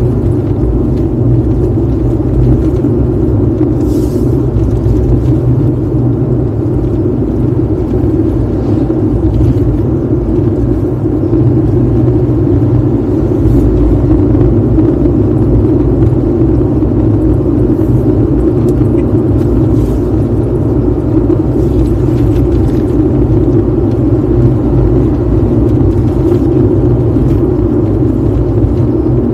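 Car driving at road speed on an asphalt highway, heard from inside the cabin: a steady, deep rumble of tyre and engine noise.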